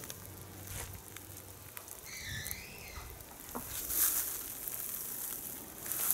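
Crackly rustling of footsteps on dry straw mulch, loudest about four seconds in, with a short wavering whistle about two seconds in.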